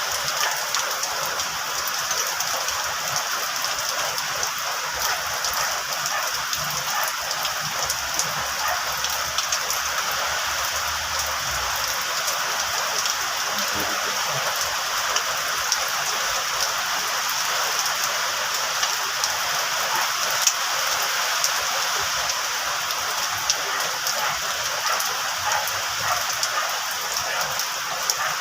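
Steady rain, an even hiss sprinkled with many small scattered ticks, holding level throughout.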